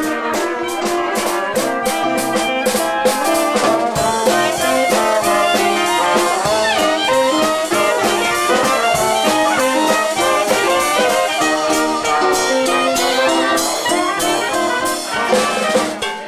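Live band playing, led by a horn section of saxophone, trombone and trumpet over a drum kit, with steady drum beats under the held horn notes.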